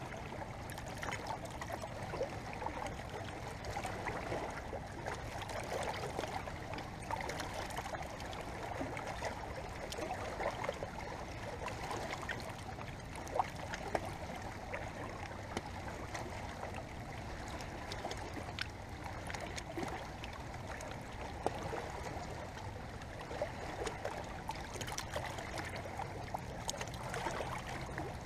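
Water moving steadily with a trickling, lapping sound, dotted with small clicks and a few sharper ticks.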